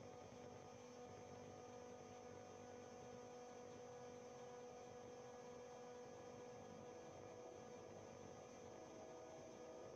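Near silence: a faint, steady electrical hum with a few constant tones and no other sounds.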